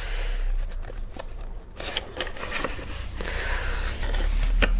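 Handling noise: scattered light clicks and rustling as objects are fiddled with, with a steady low electrical hum underneath.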